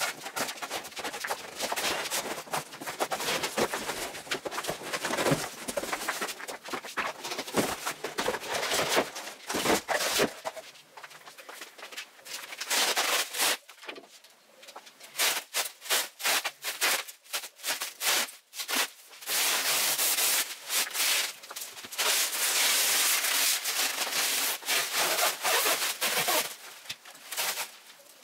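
Cardboard shipping box being handled and lifted off a desk, then black plastic stretch wrap being pulled and torn away, crinkling and rustling in irregular bursts, with a denser stretch of crackling in the second half.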